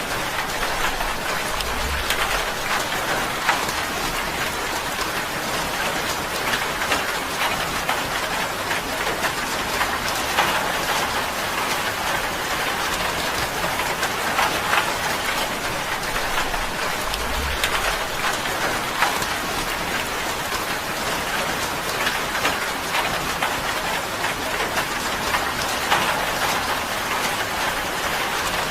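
Steady rain drumming on a tin roof, a dense patter of many small drop ticks.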